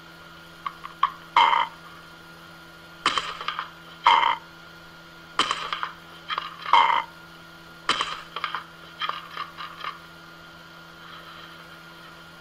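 A parrot's short, harsh squawks, a dozen or so spread over the first ten seconds and ending in a quick run of clipped calls, over a steady faint hum.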